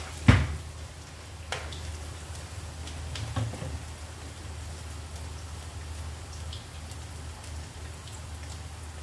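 Black glutinous-rice crackers (rengginang) deep-frying in oil in a wok, a steady crackling sizzle. A metal skimmer clacks against the wok once sharply about a third of a second in, then more lightly twice within the next few seconds as it is set down.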